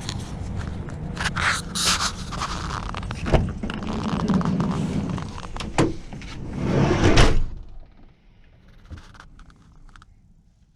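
Knocks and scrapes of someone getting into a van, ending with the van door pulled shut with a heavy thunk about seven seconds in, after which the outside noise drops away to a quiet cabin.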